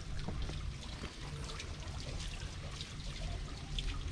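Water trickling and pouring steadily from a pipe onto a small wooden waterwheel and into its stone channel.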